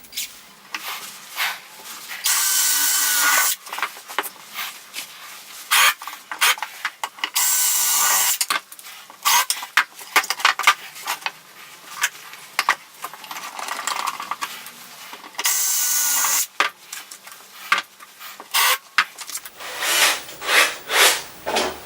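Woodworking workshop sounds: many clicks and knocks of tools being handled, with three hissing, rasping bursts of about a second each.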